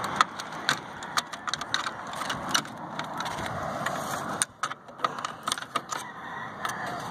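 Irregular sharp metallic clicks and clinks of hand tools and loose metal parts as a fitting is undone on an old package air conditioner, over a steady background noise.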